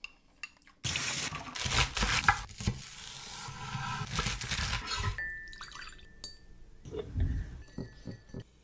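Cooking prep sounds: a knife cutting through a bunch of scallions on a wooden cutting board, then a whisk clinking against a bowl as a dark sauce is stirred.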